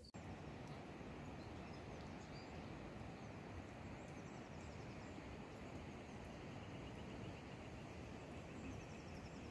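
Steady outdoor background noise, with faint runs of high chirping now and then.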